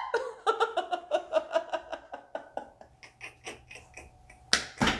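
A person laughing in a run of short pulses that fade away, followed near the end by a brief loud burst of noise.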